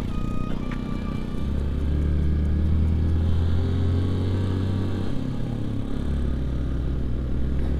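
Motorcycle engine running at steady road speed, heard from the rider's seat as a constant low drone that changes a little about six seconds in.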